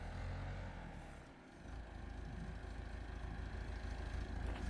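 Backhoe's diesel engine running at a low, steady idle, a faint low rumble that drops out briefly about a second and a half in.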